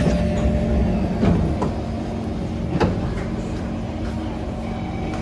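Train doors and platform screen doors of a Kawasaki C151 train sliding open at a station stop: a knock about a second in and a sharp clack near three seconds, over the steady hum of the stopped train.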